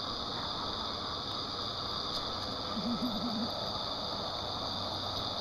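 Hot tub jets running: a steady rush of churning, bubbling water. A brief hummed voice sounds about three seconds in.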